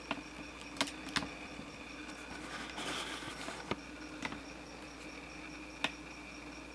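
Kittens shifting about on a cloth quilt: a few soft, sharp clicks and a brief rustle about three seconds in, over a steady electrical hum.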